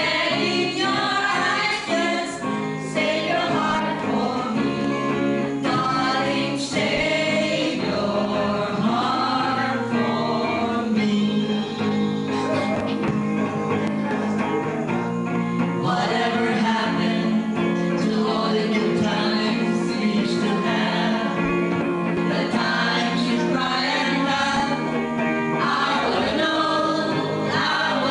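A mixed group of men and women singing a song together, with guitar accompaniment.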